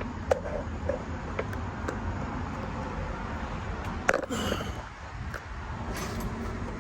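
A few sharp clicks and knocks, the loudest about four seconds in, over a steady low background rumble.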